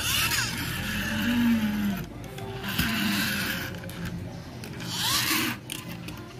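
A young child making pretend car-engine noises with her mouth, a buzzing lip-blown "brrr" that wavers in pitch. It comes in three long bursts: one at the start, one about halfway, and a shorter one near the end.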